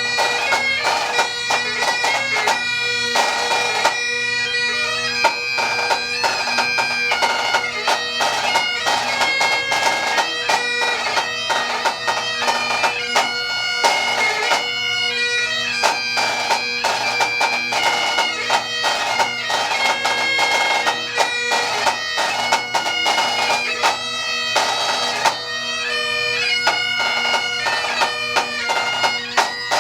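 A pipe band's bagpipes playing a tune: the melody moves from note to note over steady, unchanging drones, with quick ornamental notes between them.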